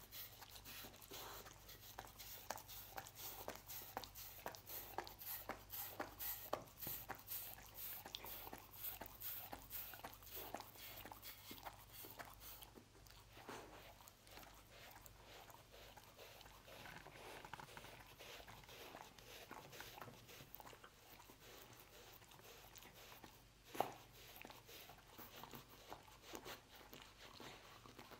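A dog licking a wooden cutting board and the rug beside it: quick, wet tongue laps and smacks, close together for the first half and sparser later, with one sharper click a little before the end.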